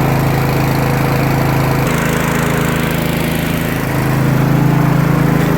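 A machine motor running steadily with a low drone, its pitch shifting slightly about two seconds in and again about four seconds in.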